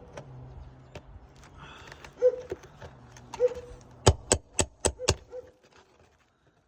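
Hammer striking a metal nail puller to work roofing nails out of asphalt shingles: two single ringing strikes, then a quick run of five strikes about four seconds in.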